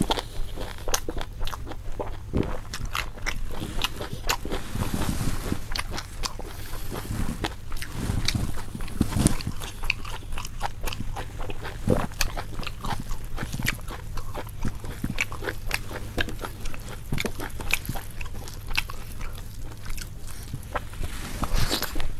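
Close-up eating sounds: crunchy food being bitten and chewed, with many irregular crackles and clicks.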